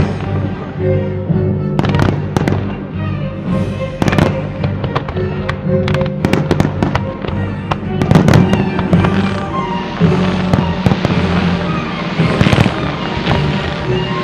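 Fireworks display with frequent sharp bangs and cracks of bursting shells, heaviest in clusters about 4, 8 and 12 seconds in, over loud music.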